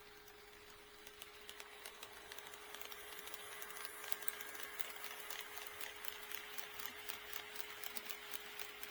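HO scale model train running on KATO Unitrack, growing louder from about a second in as it comes close, with a rapid patter of clicks as the wheels cross the rail joints. A steady hum-like tone sounds throughout.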